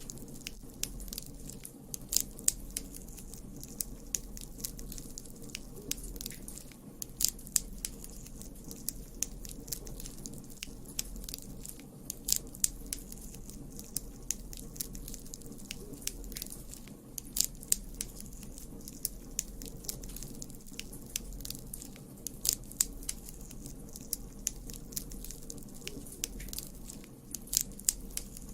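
Campfire burning, with a steady low rumble of flame and sharp crackles and pops from the burning wood, scattered irregularly several times a second.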